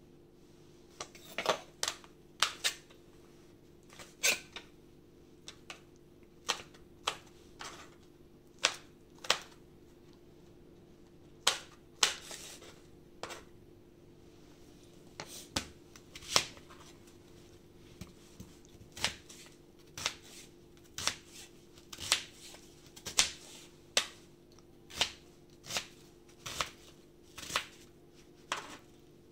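Metal spoon clinking and knocking against a glass jar and bowl while wholegrain mustard is scooped out, in sharp irregular clicks about one a second, over a steady low hum.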